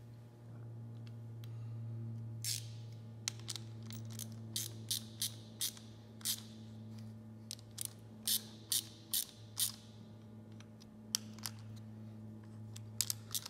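Small metal screws and a hex key clicking and clinking against an aluminum workpiece in a vise as screws are put back in: a run of sharp, irregular clicks. A steady low hum runs underneath.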